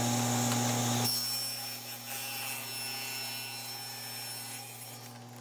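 Table saw running with a steady hum while a sheet of polycarbonate (Lexan) is fed through the blade to rip it to width. The sound is loudest for about the first second, then drops and keeps fading.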